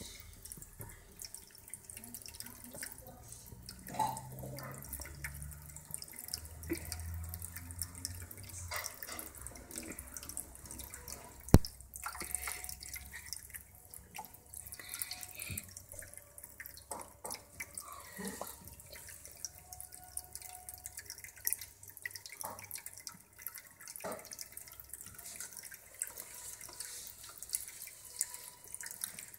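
Pet drinking fountain's thin water streams trickling steadily into its bowl. Scattered small clicks run through it, and one sharp knock comes about halfway through.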